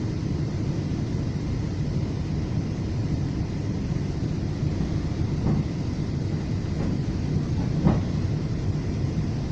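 Steady low rumble of a FrontRunner commuter train running at speed, heard from inside a passenger coach, with a few short knocks from the running gear; the loudest comes about eight seconds in.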